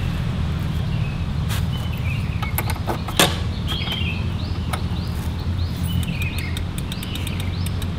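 Outdoor ambience: birds chirping in short, repeated calls over a steady low rumble, with scattered light clicks and one sharper click about three seconds in.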